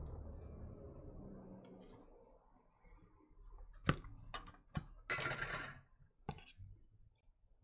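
Small sharp clicks and a short scratchy scrape as the motherboard of a Nintendo Switch is worked out of its metal frame with fingers and tweezers. A low handling rumble comes first.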